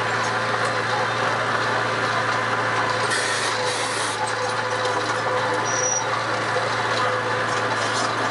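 An engine running steadily at a constant speed, with a low hum and light rattling and clicking over it.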